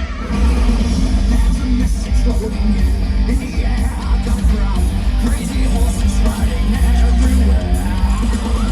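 Loud rock-style show soundtrack with electric guitar, heavy bass and a steady beat, played over loudspeakers.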